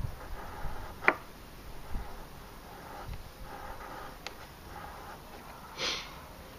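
A carbon-steel bushcraft knife carving shavings from a wooden stick: a sharp click about a second in and a short scraping stroke of the blade near the end.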